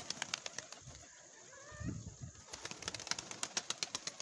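Domestic pigeons' wings flapping as the flock takes off and flies: a quick run of soft wing beats. Faint chirps of other birds come through about halfway and again near the end.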